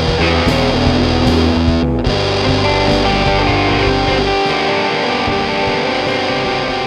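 Rock band recording with distorted electric guitar over drums and bass. The low bass drops out about four and a half seconds in, leaving mainly the guitars.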